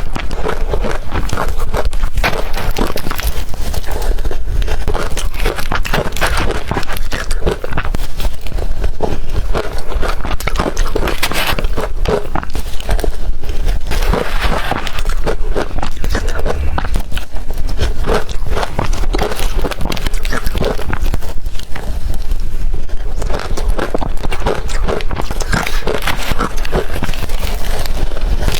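Close-up crunching of blender-crushed ice being bitten: dense, continuous crackling crunches.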